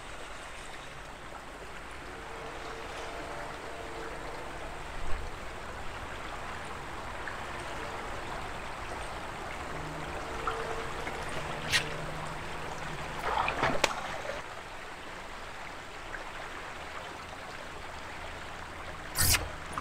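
Steady rush of river current around a boat. A few sharp knocks or clicks break through, a cluster about two-thirds of the way in and the loudest near the end.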